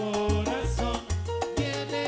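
Live salsa band playing: a bass line holds low notes under dense percussion from congas, timbales and bongos, with melodic lines above.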